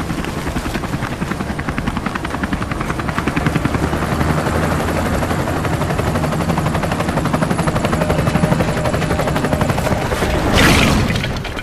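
Helicopter rotor blades chopping rapidly and steadily, with a brief loud rushing sweep near the end as the helicopter passes close overhead.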